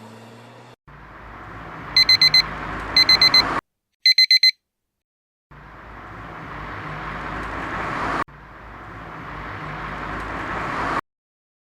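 Loud electronic beeping in quick runs of four, like an alarm clock, heard three times about a second apart. Under it a rushing noise swells louder and cuts off abruptly, then does the same twice more.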